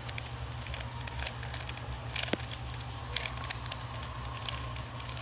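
Rubik's cube being twisted by hand: a run of quick, irregular plastic clicks as its layers are turned through an algorithm.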